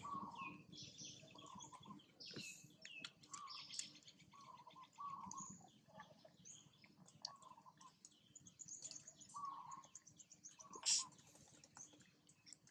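Birds chirping and calling: short repeated notes and high twittering, with one sharper, louder chirp near the end.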